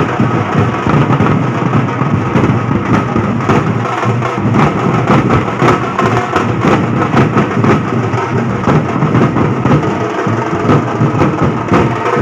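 Loud drumming in a fast, dense beat, many quick strikes following each other without a break.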